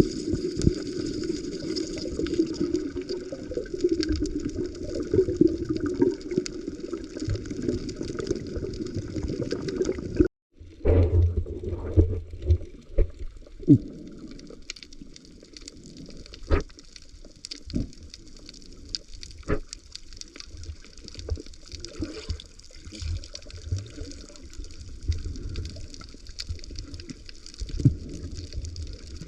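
Underwater sound on a coral reef: a steady gurgling wash of moving water, then, after a brief dropout about ten seconds in, quieter water noise with scattered sharp clicks.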